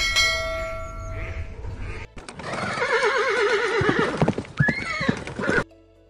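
Horse neighing: one long whinny with a quavering, wobbling pitch, starting about two seconds in and ending in a higher squeal. Before it there is a steady held tone for the first two seconds.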